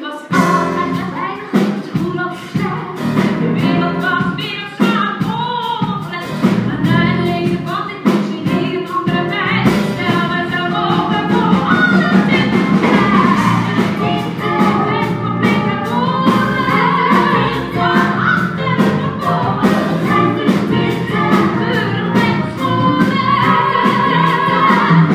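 A woman belting a song from a stage musical, over instrumental backing with percussion.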